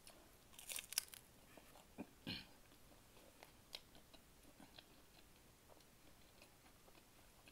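Close-up chewing of thin, crispy pepperoni pizza. A few crunchy bites come in the first second or so and two more about two seconds in, then quieter, softer chewing clicks.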